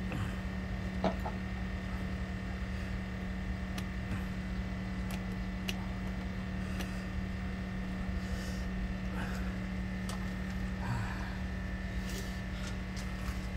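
Steady machine hum with a thin high whine above it, broken only by a few faint light clicks.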